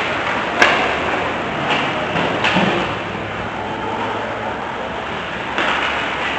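Ice hockey play in an indoor ice rink: steady skating and rink noise, with one sharp clack about half a second in and a few fainter knocks after it.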